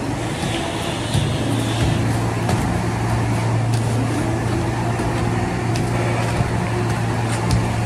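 Steady low hum of a running motor, with a few faint knocks.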